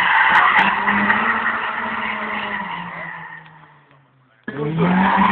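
Toyota AE86 Corolla drifting: tyres squealing loudly over the engine running at high revs, the squeal and engine fading away over about three seconds. About four and a half seconds in, the sound returns abruptly with another tyre-squealing slide.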